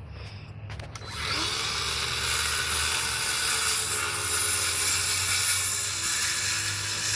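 Corded electric saw running and cutting through a scrap wood board, starting about a second in and running steadily.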